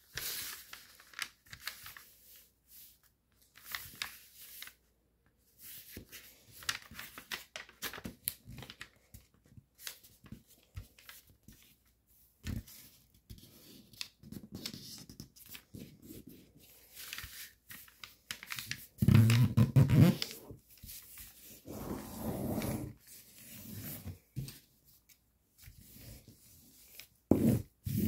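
Foil-backed origami paper rustling and crinkling in short bursts as hands fold it in half and run along the crease, sliding over the paper and tabletop. About two-thirds of the way through there is a louder stretch of handling with a low rumble.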